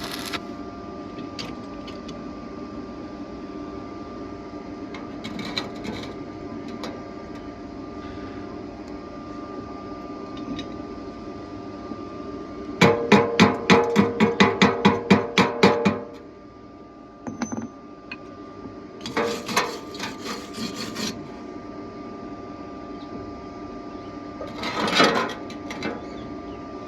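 Quick, even hammer strikes on metal, about eight a second for some three seconds about halfway through. Shorter knocking and scraping bursts come later, over a steady hum.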